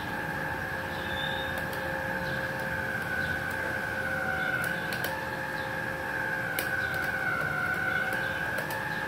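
Small 450-watt MIG welder running after being switched on, giving a steady high whine that wavers slightly in pitch, with a few faint clicks.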